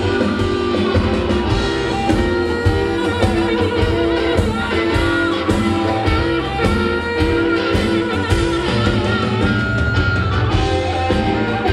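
Live blues band playing an instrumental stretch, with guitar to the fore, heard amplified through the stage sound system.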